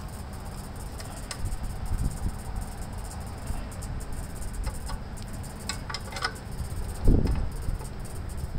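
Small wrench working on a fuel-line fitting under a fuel tank, making scattered light metallic clicks as it is turned, with a louder dull thump about seven seconds in, over a steady low hum.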